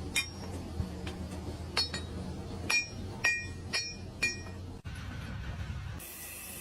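Hard metal-on-metal clinks, about six sharp strikes at uneven intervals, each with a short ringing tone, over a low steady hum. Near the end the sound changes abruptly to a steady hiss.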